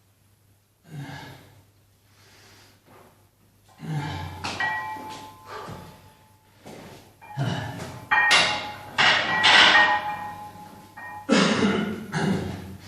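Metal weights clanking and ringing as they are handled during a weight-training set, between loud, heavy breaths.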